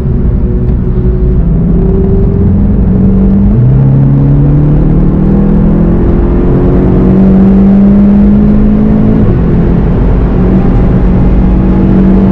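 Cabin sound of a VW Golf 7 GTI TCR's turbocharged four-cylinder accelerating hard, its pitch climbing through the gears with upshifts about three and a half and nine seconds in, over steady road and wind noise.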